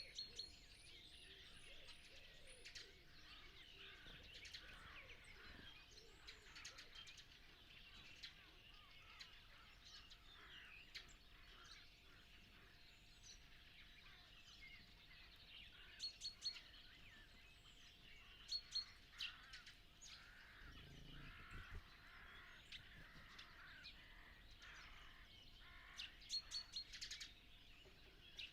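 Dawn chorus of many songbirds singing over one another, faint and continuous. One bird's short, sharp repeated notes stand out loudest in a few bursts, about halfway through and again near the end.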